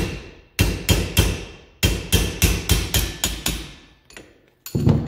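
Hammer striking a steel punch against the seal head of a rear ATV gas shock, driving the seal head down into the shock body to expose the snap-ring landing. About ten sharp metal strikes with a slight ring, three then a run of seven quicker ones, and a duller knock near the end.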